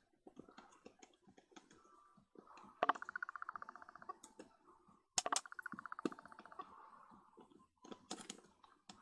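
Small clicks and scrapes of metal lens parts being worked by hand with a tool while unscrewing a retaining ring. There are two runs of rapid, evenly spaced clicking, each about a second and a half long: the first about three seconds in, the second a little after five seconds.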